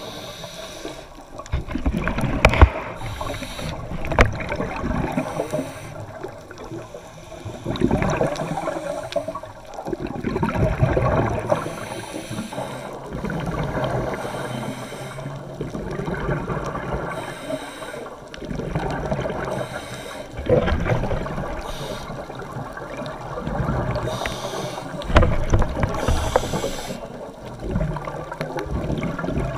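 Scuba diver breathing underwater through a regulator: exhaled bubbles rumble and gurgle in bursts every few seconds over a steady hiss of water.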